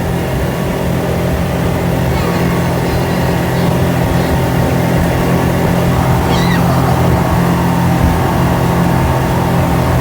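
Speedboat engine running at a steady speed throughout, with a brief high, wavering voice-like sound about six and a half seconds in.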